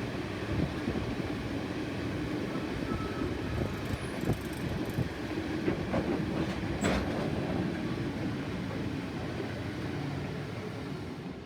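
Iron ore freight wagons rolling past on the rails: a steady rumble and clatter of wheels, with a couple of brief high wheel squeaks about midway. The sound begins to fade near the end as the train moves away.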